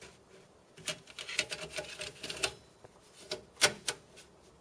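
Metal hot-swap drive caddy sliding in a server chassis drive bay: a run of light clicks and rattles, with the two loudest clicks near the end as it is pushed home.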